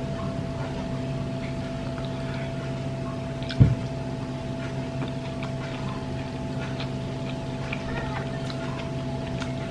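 A steady mechanical hum, like a fan or appliance running, with scattered light clicks and taps and one dull thump about three and a half seconds in.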